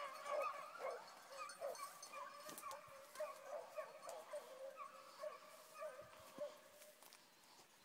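A pack of beagles baying in full cry on the scent of a hare: many overlapping hound voices that grow steadily fainter as the pack draws away.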